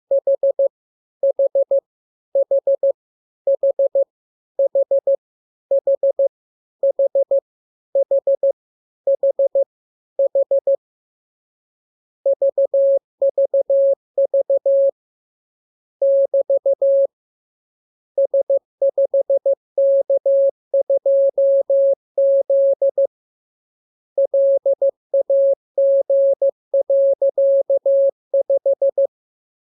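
Morse code practice tone, one steady mid-pitched beep keyed on and off. For about the first ten seconds it repeats the letter H (four quick dits) about ten times, then after a short pause it sends longer runs of mixed dots and dashes.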